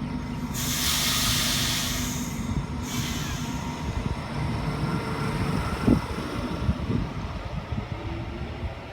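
Waratah A-set electric train pulling out of the station with a low rumble. A loud hiss of air starts about half a second in and lasts about two seconds, and a single knock comes about six seconds in.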